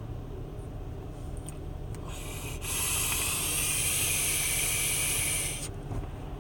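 Electronic cigarette (vape) coil firing during a long draw: a steady crackling hiss lasting about three seconds that starts about two seconds in and cuts off suddenly. Under it is the low steady road noise of the car cabin.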